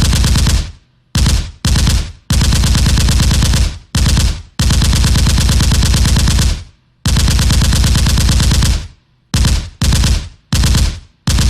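Automatic gun firing in rapid-fire bursts: about ten bursts of closely packed shots. Some last a fraction of a second, the longest about two seconds, with short gaps between them. Near the end come four short bursts in quick succession.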